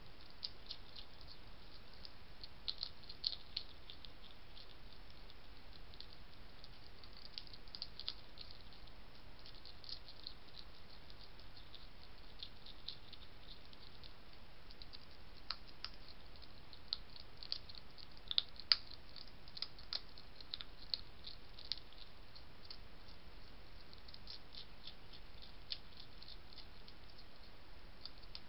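European hedgehog crunching dry biscuit food from a dish: irregular small crisp crunches and clicks, coming thicker about two thirds of the way through, over a steady faint hiss.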